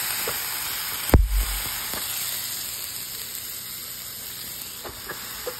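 Steaks sizzling on a Pampered Chef Deluxe electric grill and griddle: a steady hiss that slowly fades. A single thump about a second in.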